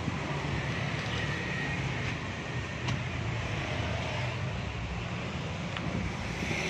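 Jeep CJ7 petrol engine idling steadily.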